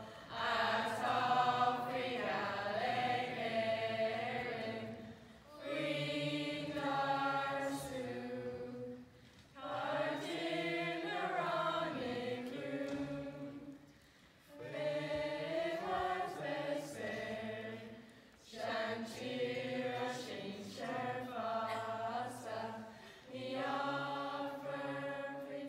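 Voices singing together in slow phrases of about four to five seconds, with short breaks between them.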